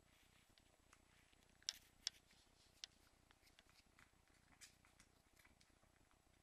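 Faint, scattered small clicks and rustles from Cairn terrier puppies and their mother shifting about in a fleece dog bed, and a puppy's paws on the newspaper beside it, the sharpest pair of clicks about two seconds in.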